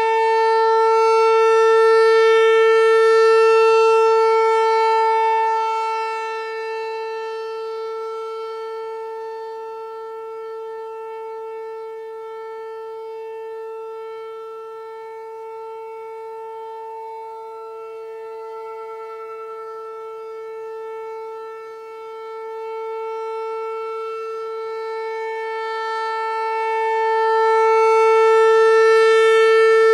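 American Signal Corporation T-128 outdoor warning siren sounding a steady tone in a monthly test. The pitch holds level while the sound swells and fades as the siren head rotates: loudest near the start, weaker through the middle, loud again near the end.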